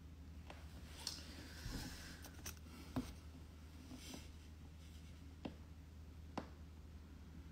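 Quiet room tone with a faint steady hum, broken by soft rustling and a few light clicks and taps: hand and clothing movement close to a phone's microphone. The rustling comes about a second in and runs a few seconds; two single light taps follow near the end.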